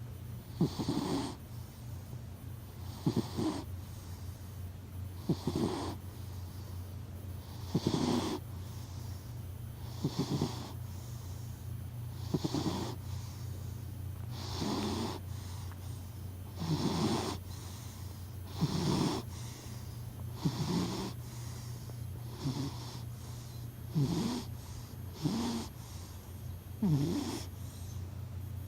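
A sleeping black cat snoring, one soft snoring breath about every two seconds.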